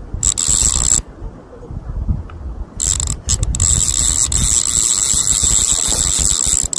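Spinning reel being cranked: its gears whirr with a high whine, a short spell near the start and then a long steady spell of winding from about three seconds in.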